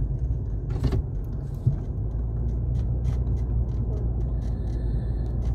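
Steady low rumble of a car's engine and tyres heard inside the cabin while driving, with one sharp click about a second in.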